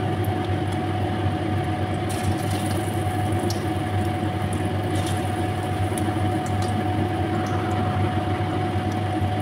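Marinated chicken pieces frying in hot oil in an aluminium wok: a light sizzle with a few faint crackles. Under it runs a steady low hum with a constant tone.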